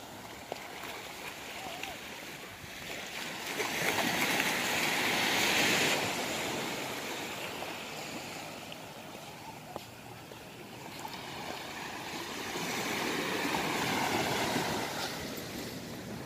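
Small waves washing up on a sandy beach, the wash swelling and fading twice, once a few seconds in and again near the end.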